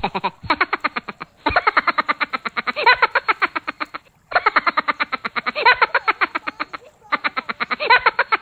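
Sound effect of a frog croaking in fast, even pulses, about ten a second, in four runs broken by short gaps.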